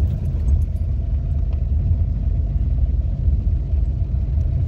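Car driving on an unpaved dirt and gravel road, heard from inside the cabin: a steady low rumble of engine and tyres, with a few faint ticks near the start.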